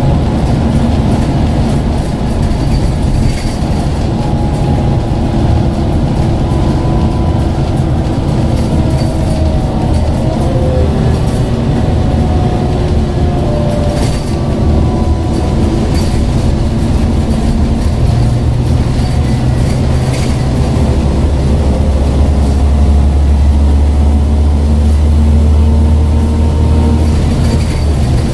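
Scania N94UD OmniCity double-decker bus heard from a seat inside while it drives: the diesel engine and ZF automatic gearbox drone steadily over road noise, with a whine that drifts up and down in pitch. The body gives occasional rattles. A deep, heavy low hum comes in during the second half as the engine works harder.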